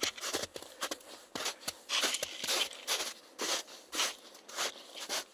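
A hiker's footsteps on a snowfield, about two steps a second.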